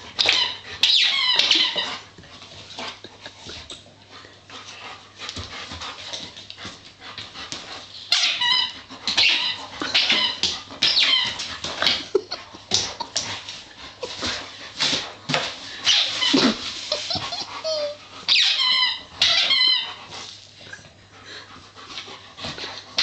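A dog chewing a squeaky toy: short runs of wavering high-pitched squeaks, in clusters near the start, around the middle and again near the end. Small knocks and clatter sound in between.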